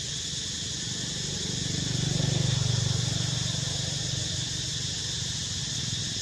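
Steady high-pitched buzzing of an insect chorus, with a passing vehicle's engine hum that swells about two seconds in and fades away.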